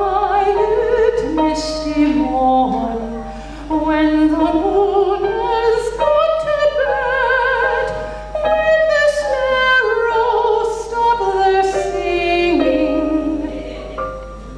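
A woman singing with vibrato while accompanying herself on a digital piano; the singing fades near the end.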